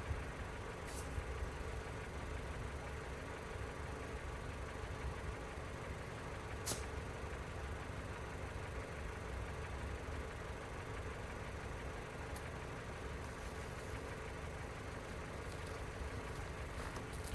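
An engine running steadily, a low rumble with a faint steady hum, and a few light clicks.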